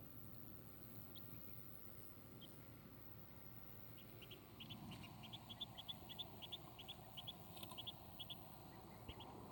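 Muscovy duckling peeping faintly: a couple of lone short, high peeps early, then a quick run of them about four or five a second from about four seconds in.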